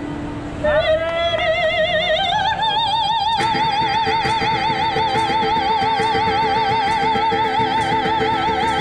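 A woman singing one long held note with a wide, even vibrato; it climbs over the first couple of seconds, then holds. A small guitar-like instrument plays chords underneath, growing fuller about three and a half seconds in.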